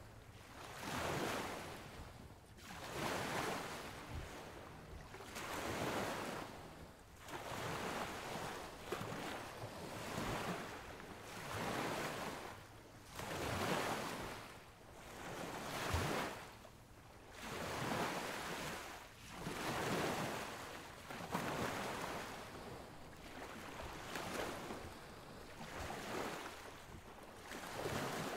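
Rushing, surf-like noise that swells and fades in an even rhythm, about once every one and a half seconds.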